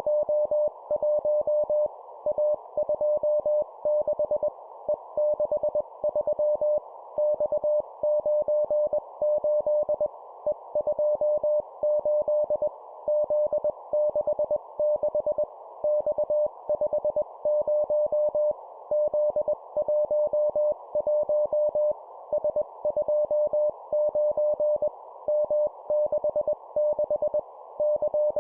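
Morse code sidetone sending 20 wpm practice groups of one letter and two numbers: a single steady pitch keyed on and off in dots and dashes, with a short pause roughly every second and a half between groups. A narrow band of hiss sits around the tone.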